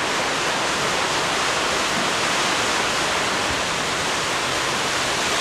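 Steady, fairly heavy rain falling, an even, constant hiss.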